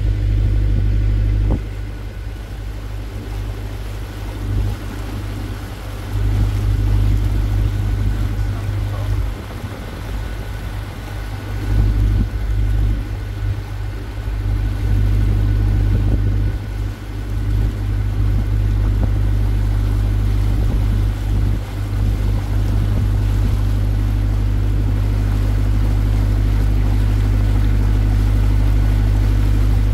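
Water taxi's engine running steadily as the boat travels along the river, with an uneven low rumble that rises and falls.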